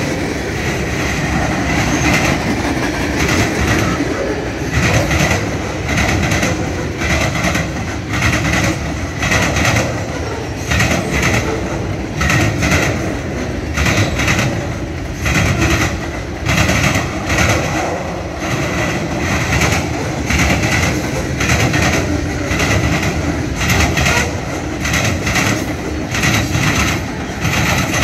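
Freight train cars rolling past at close range: a steady rumble of steel wheels on rail with a rhythmic clickety-clack, pulsing about once a second.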